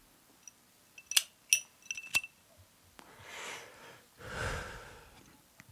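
Four quick, sharp clinks in about a second, like small hard objects knocking together, followed by two soft hissing rushes of noise.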